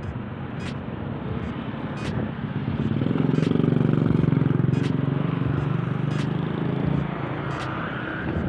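A vehicle engine running, growing louder about three seconds in, holding for a few seconds, then easing off about seven seconds in.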